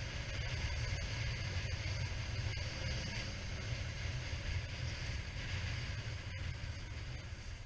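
Motorcycle ride recorded from the bike: a steady low engine rumble from a Suzuki SV650 V-twin under even wind and road hiss, easing off slightly near the end.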